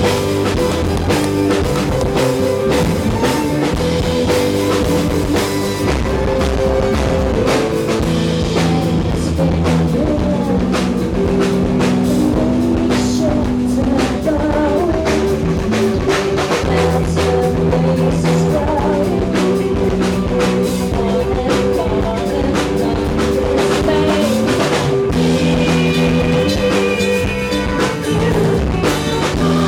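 Rock band playing live: drum kit keeping a steady beat under sustained guitar and bass chords.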